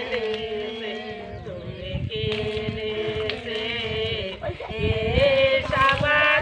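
A group of voices singing together, with long held, wavering notes.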